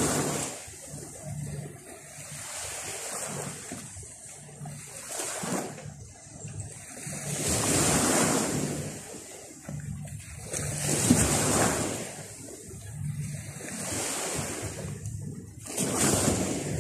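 Sea waves breaking and washing up on the shore, the surf swelling and falling back every two to three seconds.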